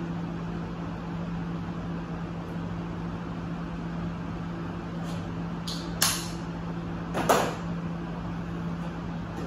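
A steady low hum, with two sharp knocks: one about six seconds in and a louder, slightly longer one a little over a second later.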